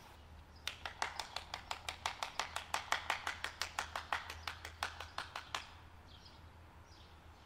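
One person clapping their hands quickly and evenly, about six claps a second. The claps start under a second in and stop after about five seconds.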